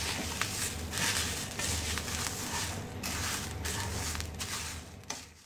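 Wooden spatula stirring whole spices dry-roasting in a pan: a dry rustling scrape of bay leaves and seeds with each stroke, about two or three strokes a second, with a light crackle as the spices reach the end of roasting. The sound fades away near the end.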